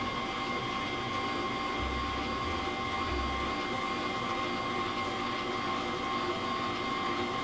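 Hamilton Beach Eclectrics stand mixer running steadily at about medium speed, its motor giving a constant whine as the whisk beats egg whites while hot sugar syrup is poured in.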